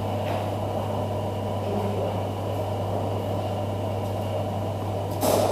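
A steady low mechanical hum with even background noise, like ventilation or air conditioning, and one short noisy burst about five seconds in.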